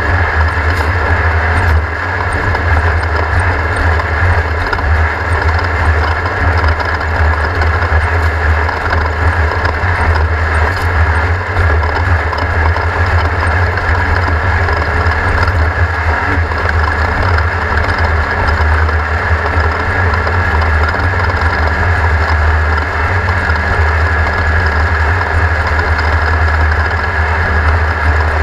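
Race car engine running steadily with a loud, deep, constant drone and no clear revving.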